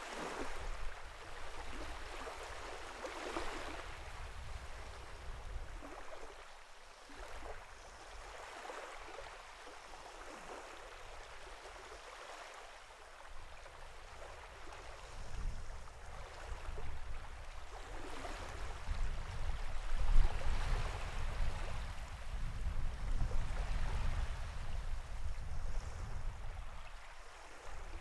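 Sea water washing and lapping in slow swells of rushing noise that rise and fall every few seconds. A deep rumble builds through the second half and is loudest about twenty seconds in.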